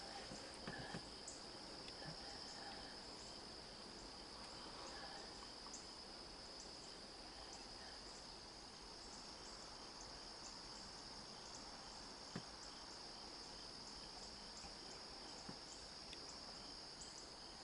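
A faint, steady, high-pitched insect chorus in the evening woods, with a few faint ticks over it and one soft knock about twelve seconds in.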